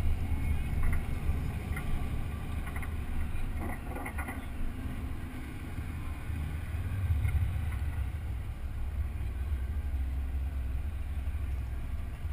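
2013 Shelby GT500's supercharged V8 running steadily at low revs as the car creeps along, with some wind noise on the microphone.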